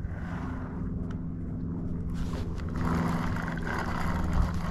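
Steady low hum of a small motor, with a rougher rushing noise of wind and water that grows louder about two seconds in, and a few light ticks.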